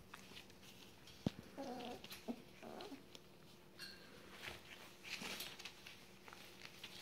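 Border collie puppies about four weeks old giving two short, faint whimpers a couple of seconds in, just after a sharp click, among rustling of the newspaper lining their pen.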